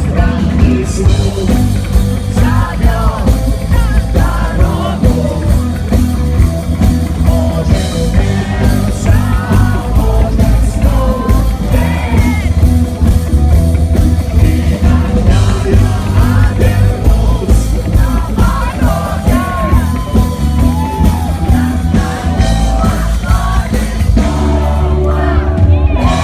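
Live rock band playing loud amplified rock, with drums, bass and guitars under a singing voice.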